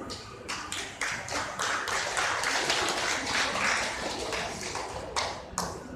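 Audience applauding: a dense patter of clapping that swells and then thins out toward the end.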